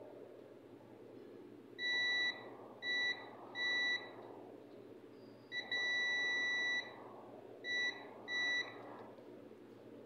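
Digital multimeter's continuity beeper sounding six times with a steady high tone, five short beeps and one held for about a second, as the test probes are touched across points on a circuit board. Each beep signals a closed, low-resistance path between the probe tips.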